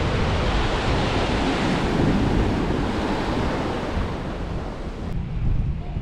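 Small waves breaking and washing up a sandy beach, with wind buffeting the microphone. About five seconds in, the hiss of the surf cuts off suddenly and mostly the low wind rumble remains.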